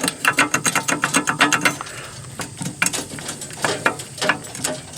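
Worn, unbushed steering pivot of a gas-powered Radio Flyer wagon rattling and clicking as it is rocked back and forth by hand. Rapid metal-on-metal clacks come thick for the first two seconds, then more sparsely. The sound is the sign of about a sixteenth of an inch of play in a pivot that was never bushed.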